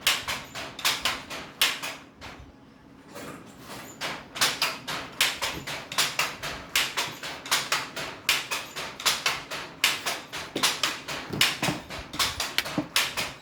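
Baby monkey making short, sharp sounds over and over, about two or three a second, with a brief pause about two seconds in.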